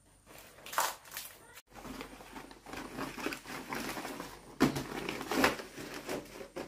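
Large green wrapping leaves rustling and crinkling as they are handled and pressed into a woven basket, with two louder crackles near the end.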